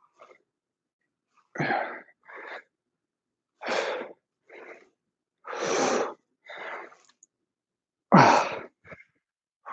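A man's hard exertion breaths in time with repetitions of a resistance-band exercise: four forceful breaths about two seconds apart, each followed by a shorter, softer one.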